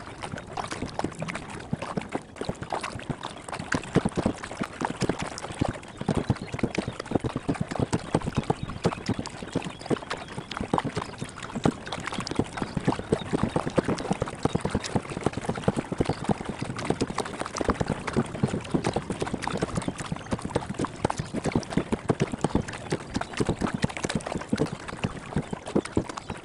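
Kayak paddle strokes splashing and dripping, sped up into a rapid, unbroken patter of water sounds.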